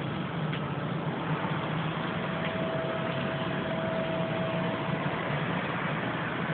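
A steady low drone with a hum band under a noisy hiss, the kind of unexplained night-time rumble reported as 'strange sounds'. A faint steady higher tone comes in about two seconds in and fades out near the end.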